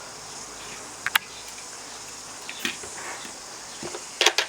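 Light clicks and taps of plastic toy pieces being handled: one about a second in, another a little later, and a quick cluster of clicks near the end, over a steady faint hiss.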